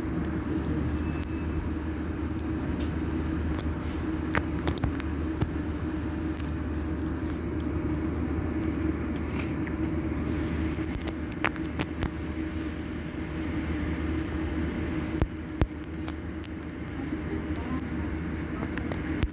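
Irizar ie tram electric bus standing at a stop, giving a steady low hum, with scattered short sharp clicks.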